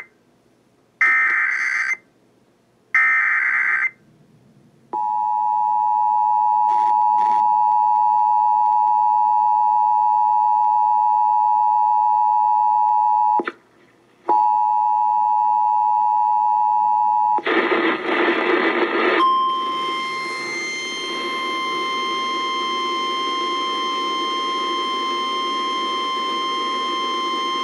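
Emergency alert broadcast tones ahead of a severe thunderstorm warning. Two short screechy data bursts of the digital alert header come first. Then the two-tone attention signal holds for about eight seconds, breaks off briefly and resumes, followed by a second or so of noisy static and a single steady higher alarm tone held for about eight seconds.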